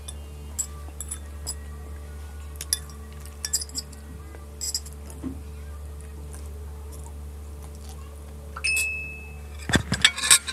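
Metal fork and spoon clinking lightly against a plate as noodles are eaten, with scattered single clinks and then a quick cluster of louder clinks near the end. A steady low hum runs underneath.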